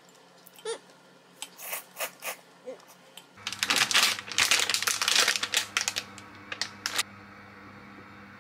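A plastic food packet crinkling loudly as it is handled, for about three seconds from a little before halfway. Before that there are only a few light clicks and taps.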